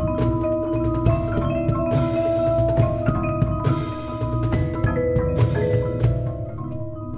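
Percussion ensemble playing: marimbas and other mallet instruments ring out repeated pitched notes over drum hits. About six and a half seconds in, the drum hits thin out and the music gets quieter, leaving mostly the mallet instruments.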